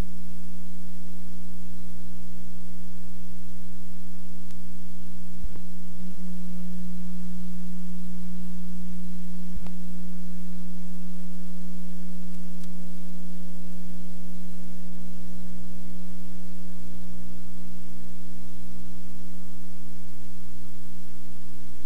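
Steady electrical mains hum, a constant low buzz with overtones and no change in pitch or level, on the audio track of a blank stretch of old videotape. A few faint clicks come through about five, six and ten seconds in.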